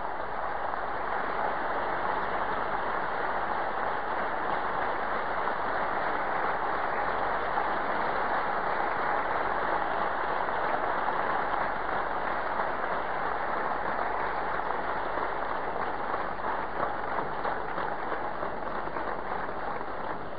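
Audience applauding steadily, thinning slightly near the end.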